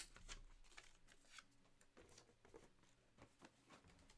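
Near silence broken by faint, scattered clicks and rustles of small handling noises, with one sharper click right at the start.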